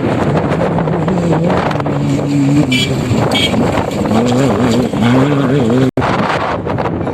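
Off-road motorcycle engine running, its pitch wavering up and down as the throttle changes, under heavy wind buffeting on the microphone. The sound cuts out for an instant near the end.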